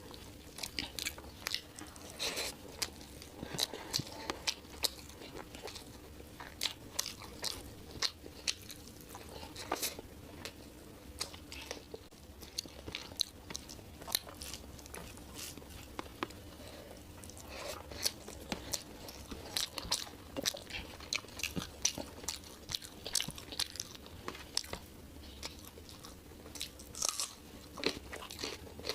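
Close-miked eating: a person chewing and biting food, with many short, irregular wet clicks of the mouth, over a faint steady hum.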